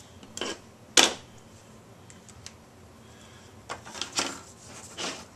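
Hard plastic handling sounds: a plastic speed square and a plexiglass sheet moved and set down on a tabletop, giving a handful of sharp clicks and knocks. The loudest knock comes about a second in, and a quick cluster of clicks follows near the end.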